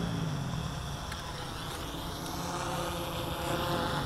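Quadcopter drone propellers humming in flight, a steady buzz.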